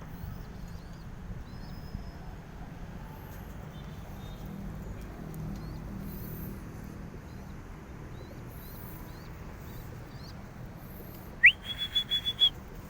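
Faint chirps of small birds over a steady low background. Near the end a loud whistle rises in pitch and then holds for about a second.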